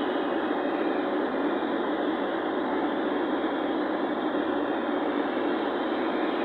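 Steady rushing road and engine noise of a vehicle being driven at an even pace, with no change in pitch or loudness.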